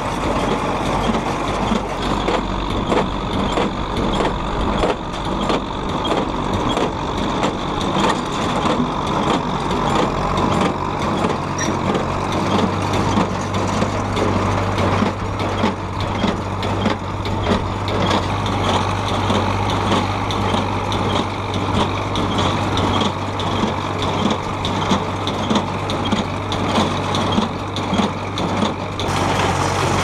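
Tractor engine running steadily while driving a New Idea 7210 inline small square baler through its PTO, the baler knocking in a fast, even rhythm as its plunger packs hay.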